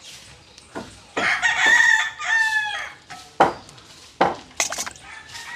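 A rooster crowing once, about a second in, its call lasting nearly two seconds with a falling end, followed by two sharp knocks.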